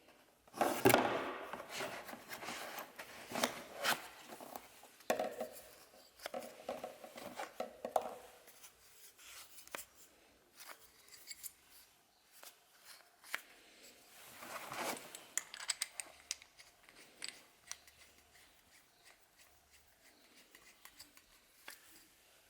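Packaging and plastic parts of a foam cannon being unboxed and handled: intermittent rustling and scraping with scattered sharp clicks, loudest about a second in and again around the middle.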